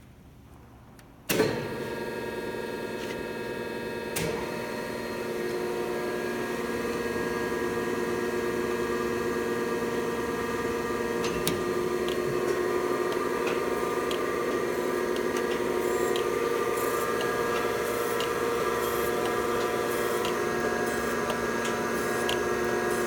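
Thompson 8x24 surface grinder starting up: its motors switch on suddenly about a second in and run up over several seconds to a steady hum and whine with several fixed tones.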